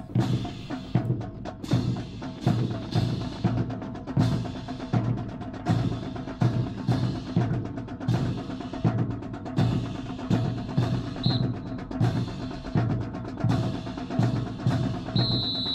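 Marching drum corps of bass drum, snare and cymbals playing a steady cadence, about two beats a second.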